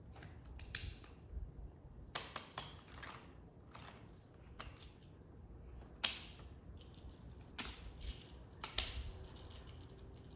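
Plastic magnetic building tiles being handled, clicking and clacking against each other in irregular, scattered snaps, the loudest near the end.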